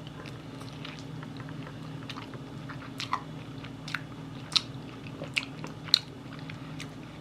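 Close-up biting and chewing of Korean fried chicken in sweet yangnyeom sauce, with several sharp crunches as the coating breaks, spread through the second half.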